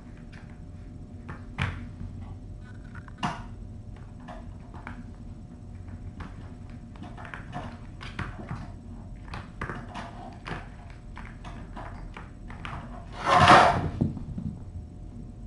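Cats playing around plastic ball-track toys on a hard floor: scattered light clicks and knocks, with two sharper knocks in the first few seconds. Near the end a cat brushes right against the camera microphone, a loud rustling rub of fur lasting about a second.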